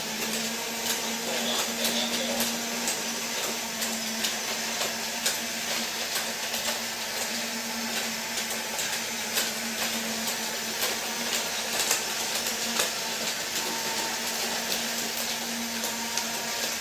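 Small electric motors of toy Disney monorail playset trains whirring steadily as the trains run along their track, with a steady hum and many light clicks.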